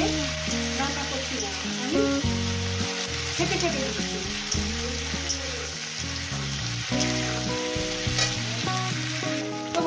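Potato, taro and bean pieces sizzling in hot oil in a metal kadai, stirred and turned with a steel spatula that scrapes against the pan. Background music with sustained notes plays underneath.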